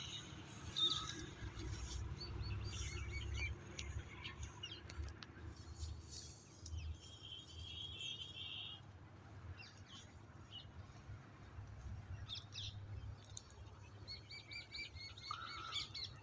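Small birds chirping and calling, with a rapid trill about six and a half seconds in and a run of quick repeated chirps near the end, over a low rumble.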